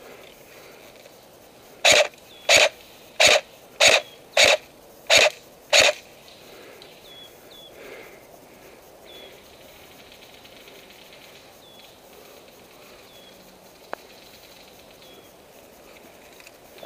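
Airsoft SVD sniper rifle replica fired seven times in semi-auto, short sharp shots about one and a half a second. Small birds chirp faintly, and a single click sounds near the end.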